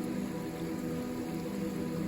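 Steady rushing of river water, with soft ambient music of held low notes over it.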